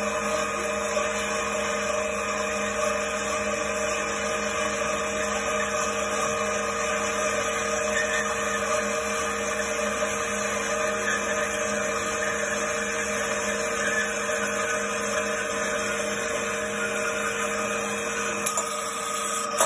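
Trennjaeger Teba 310 metal-cutting band saw running steadily, its blade sawing through a thick-walled steel tube clamped in the vise, with a steady mechanical hum and the rasp of the cut. A single sharp click near the end.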